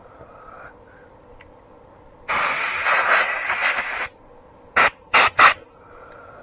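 A pressurised spray hissing for nearly two seconds, then three short bursts in quick succession.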